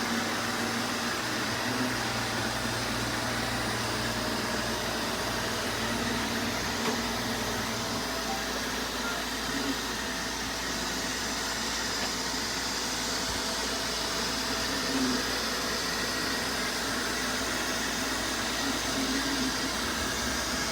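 Several robot vacuums running together on carpet, a steady whirring noise of their motors and brushes. A low hum drops out about eight seconds in.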